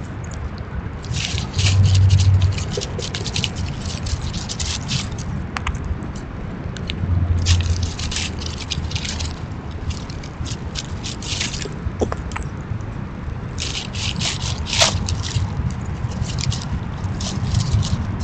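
Gray squirrel rummaging in dry leaf litter close to the microphone: repeated bursts of crackling rustles and scratchy clicks, over a steady low rumble.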